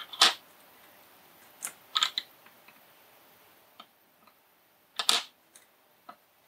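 Sharp light clicks and taps from a small circuit board and a soldering iron being handled on a wooden desk while a surface-mount chip is hand-soldered: a loud click right at the start, a little cluster about two seconds in, another loud one about five seconds in, and fainter ticks between.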